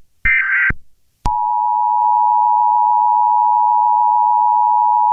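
Emergency Alert System alert: the last of three SAME header data bursts, a short harsh buzz, then about a second in the steady two-tone EAS attention signal (853 and 960 Hz together) starts and holds, announcing a new warning.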